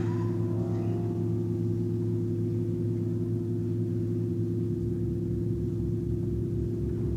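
Electric organ holding a low sustained chord, with a few higher notes dying away in the first second. From about five seconds in, the lowest notes take on a fast pulsing.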